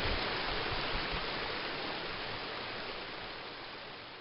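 A rocky forest creek rushing over stones: a steady water rush that gradually fades away.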